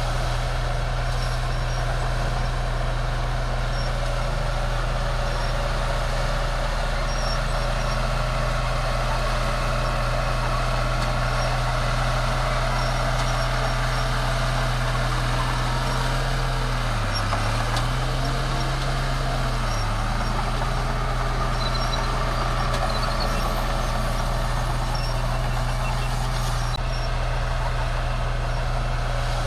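Bulldozer's diesel engine running steadily under work. Its pitch dips briefly, twice, a little past halfway, then recovers.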